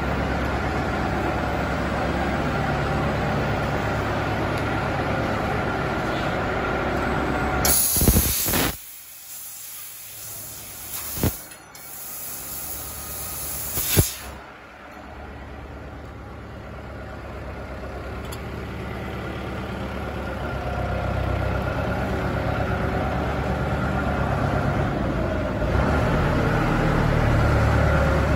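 Laser tube-cutting machine running with a steady mechanical hum. About eight seconds in comes a loud burst of hiss, then a quieter stretch with a few sharp clicks, after which the low machine hum slowly builds again.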